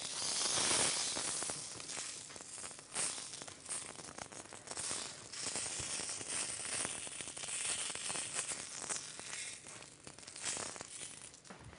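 Hawawshi, minced-meat-stuffed bread loaves, sizzling as they fry in oil in a frying pan. Scattered clicks and scrapes come from a utensil turning them in the pan.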